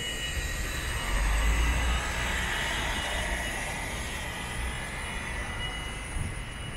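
Street traffic noise as a vehicle passes close by: a low rumble swells about a second in, then its hiss fades away over the next few seconds.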